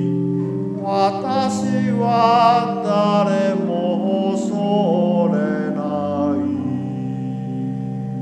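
A male cantor sings the closing line of a Japanese psalm refrain over organ accompaniment, his voice wavering with vibrato. The voice ends about six seconds in, and the organ holds the final chord alone.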